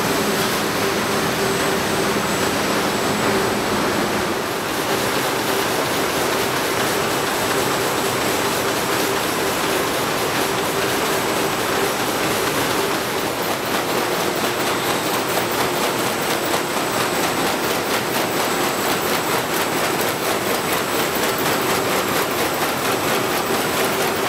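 Corrugated-box production machinery running: conveyors and a Bobst Expertfold folder-gluer working at speed, a dense steady clatter with a constant hum underneath and a faint high whine.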